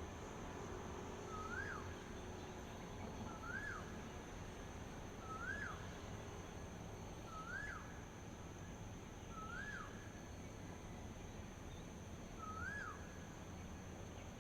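A bird calling over and over: six short notes, each rising and then dropping sharply, about every two seconds. Behind it runs a steady high-pitched insect drone and a low background rumble.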